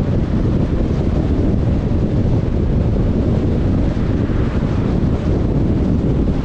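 Steady low rumble of a car on the move: road noise mixed with wind buffeting the microphone.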